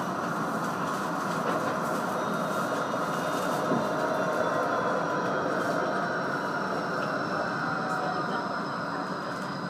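Bombardier Flexity 2 light-rail tram running along its track, heard from the driver's cab: a steady rumble of wheels and running gear, with a faint high whine that slowly drops in pitch as the tram slows into a stop.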